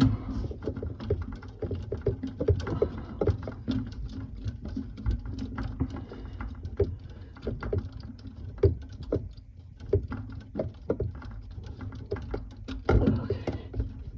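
Irregular small clicks, taps and rattles of metal faucet hardware and screws being handled and fitted under a sink, over a faint steady low hum.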